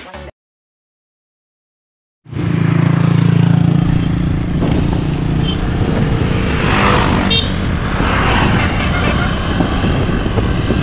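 Loud, steady road noise from riding along a paved highway, with a motor vehicle engine humming and wind on the microphone. It starts suddenly about two seconds in, after the end of a music track and a short cut to silence.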